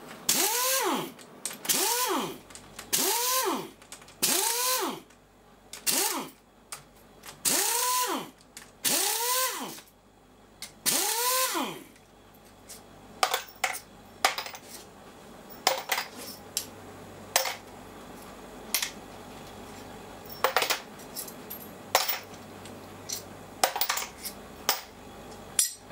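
Pneumatic impact wrench undoing bolts in about nine short bursts, each with a whine that rises and falls as the tool spins up and runs down. Then come a string of sharp metallic clinks as the loosened steel bolts are handled and dropped into a plastic parts tray.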